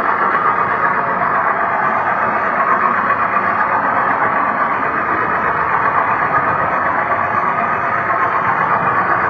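HO-scale model train running along its track, heard from a wagon of the train itself: a steady running noise of wheels on rails and the locomotive's motor, without a break.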